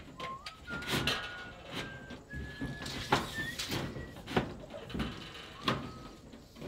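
Someone whistling a slow tune of held notes that step gradually higher, over irregular sharp knocks and clatter from construction work.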